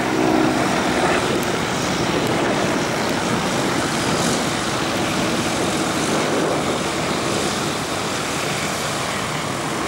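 Single-engine radial-engined propeller plane flying past overhead: a steady engine drone and prop noise that eases slightly as the plane draws away.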